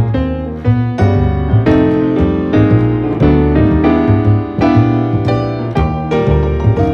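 Background piano music with a steady run of notes over low bass notes.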